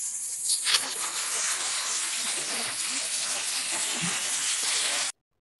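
Compressed-air spray gun hissing steadily as it blasts petrol through a carbon-fouled intake manifold to wash it out; the hiss cuts off suddenly about five seconds in.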